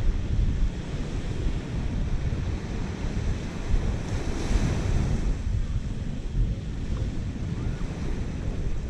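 Wind buffeting the microphone over the steady wash of surf on a beach, with the hiss of a breaking wave swelling up about four to five seconds in.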